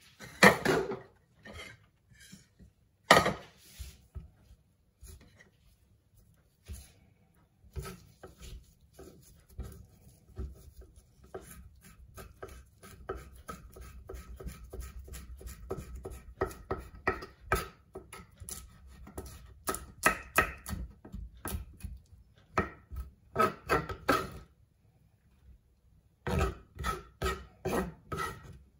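Kitchen knife chopping on a wooden chopping board: two hard knocks in the first few seconds, then a long run of quick, rapid strokes. After a pause of about two seconds, another short run of strokes comes near the end.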